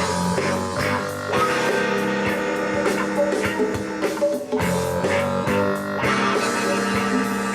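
Rock music with guitar and drums, played back from a cassette on a TEAC V-5RX tape deck.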